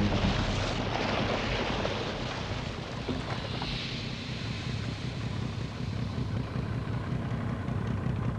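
Seawater churning and rushing in a wake, over a low boat-engine rumble and wind. The rushing is strongest in the first seconds and then eases off a little.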